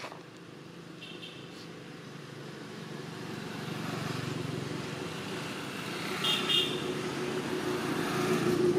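A motor vehicle engine running and growing steadily louder as it approaches, with two brief high tones, about a second in and again past the middle.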